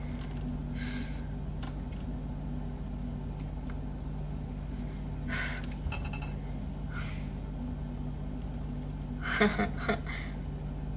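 Steady low hum with faint rustles, then a quick cluster of light clicks and knocks about nine seconds in, like small objects being handled.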